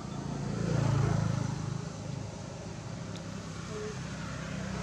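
A motor vehicle's engine droning, growing louder to a peak about a second in and then settling to a steady lower level.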